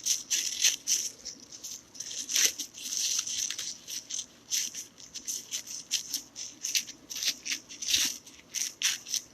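Old thermal paste being scrubbed off with an alcohol-soaked wipe: quick, uneven, scratchy rubbing strokes, a few a second.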